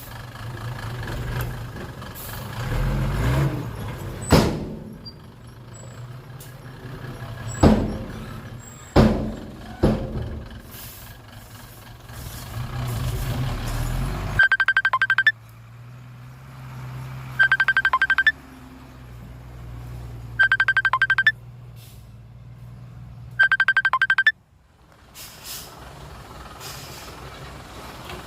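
Heavy dump truck engine running, with several loud thuds in the first half. Then the engine drops to a quieter idle while a reversing alarm sounds four times, in short bursts about three seconds apart.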